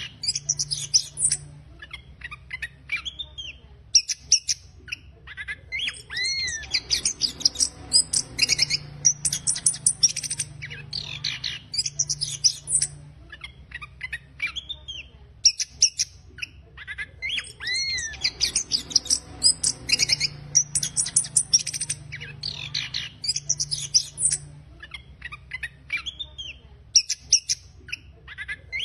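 Chestnut-capped thrush (anis kembang) singing its rough, rapid twittering song (ngeriwik kasar): dense runs of high scratchy notes broken by short pauses, with looping whistled notes that rise and fall. The phrase sequence comes round again about every twelve seconds.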